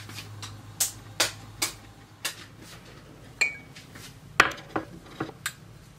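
Kitchen dishes and utensils knocking and clinking: about ten sharp separate clicks, one of them ringing briefly a little past halfway, the loudest soon after.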